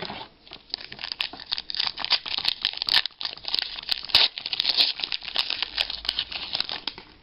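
A trading-card pack wrapper being torn open and crinkled by hand, an irregular run of crackles and rustles.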